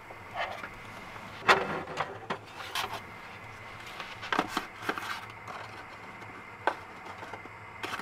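A spatula scraping and knocking against a frying pan and plate as a cooked pizza base is lifted out and set down: a string of short sharp clicks and scrapes, the loudest about one and a half seconds in, over a steady low hum.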